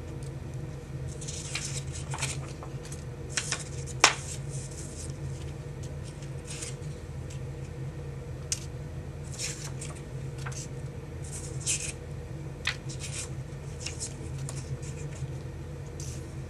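Scattered light clicks and rustles over a steady low hum, with one sharp click about four seconds in.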